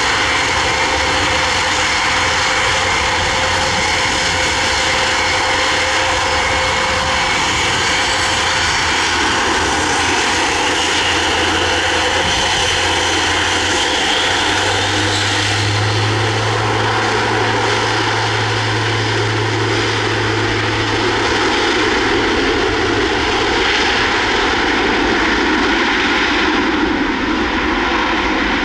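Airbus A400M Atlas's four turboprop engines running on the ground as it taxis, a loud steady drone with a high whine. A deep low drone swells for several seconds about halfway through.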